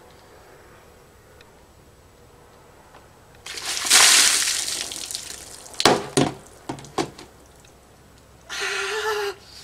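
A tub of ice water poured over a person's head. The water splashes loudly onto him and the paving about three and a half seconds in, then dies away over two seconds. A few short sharp sounds follow, and near the end comes a short yell.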